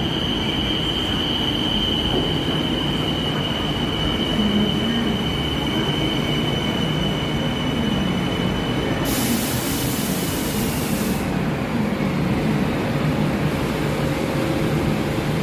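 BTS Skytrain train running on the Sukhumvit Line, a steady rumbling rail noise with a high whine that fades and dips slightly in pitch after about ten seconds. A burst of hiss lasts about two seconds, starting about nine seconds in.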